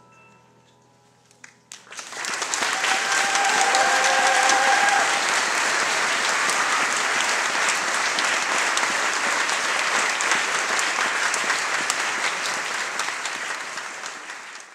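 An audience claps after a choir song, the clapping breaking out about two seconds in and carrying on steadily, with a held cheer rising over it shortly after it starts. Before the clapping, the last notes of the accompaniment die away into near quiet, and at the very end the applause fades out.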